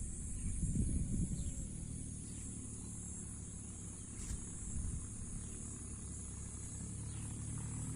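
Steady high-pitched insect chorus, with low rumbling underneath that is loudest about a second in; a low steady hum builds toward the end.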